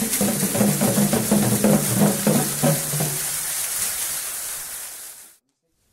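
Percussion played by children: drums and low pitched struck notes in quick, even strokes. The playing dies away after about three seconds and fades out to silence shortly before the end.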